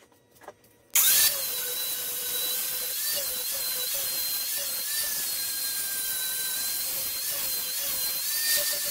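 Near silence with a few faint clicks, then about a second in an angle grinder cuts in abruptly, grinding the edge of a steel plate: a steady high whine whose pitch dips briefly several times as the disc bears on the metal.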